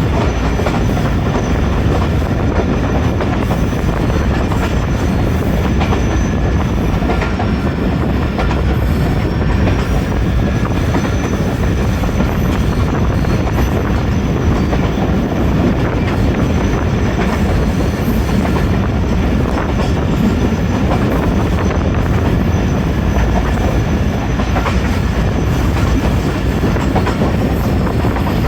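Train running along the track: a steady rumble of wheels on rail with clickety-clack, and a faint high steady whine that dips slightly in pitch about eight seconds in.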